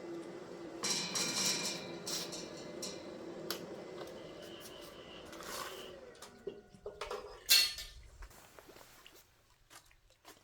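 Metal pieces clattering and scraping over a steady hum that fades out, then one loud metallic clank and a few light clicks.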